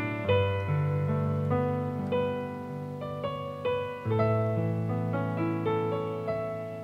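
Gentle solo piano music: melody notes struck about twice a second over held bass notes.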